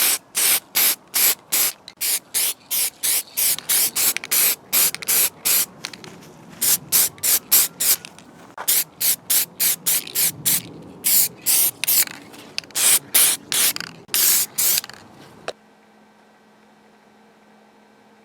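Aerosol spray can sprayed in quick short bursts, about two to three a second with a few brief pauses. The spraying stops abruptly near the end, leaving a faint steady hum.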